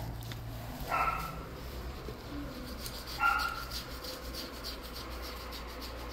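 A dog gives two short, high-pitched yips, about two seconds apart.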